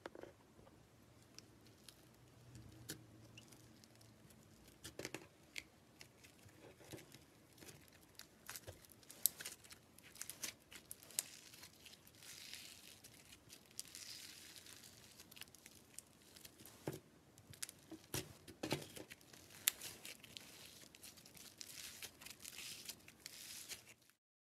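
Slime being squished and kneaded by hand: a run of small sticky pops, clicks and crackles, with short tearing sounds as it pulls apart.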